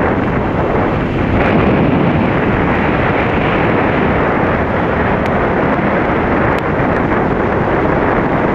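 Strong wind buffeting the microphone: a loud, steady rush with no clear tone.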